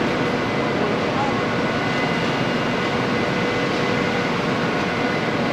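Steady machinery hum and ventilation noise in a car assembly plant, with a few faint steady whining tones over an even background rush and no distinct individual events.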